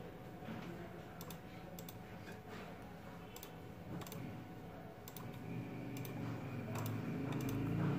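Scattered light clicks and taps from handling a smartphone and small repair tools on a workbench, over a steady low hum.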